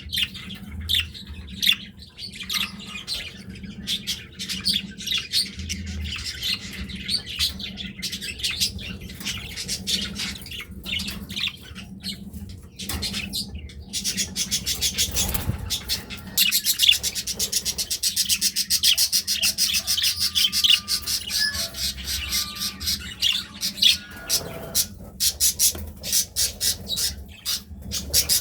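Budgerigars chattering and warbling: continuous rapid chirps and squawks, with a fast run of trilling chatter in the second half.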